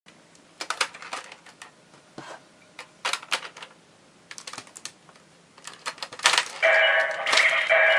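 Plastic clicks and clacks from a toy Zyudenchi battery being handled and loaded, in several quick groups, then about six and a half seconds in a toy's electronic sound effect starts playing loudly from its small speaker.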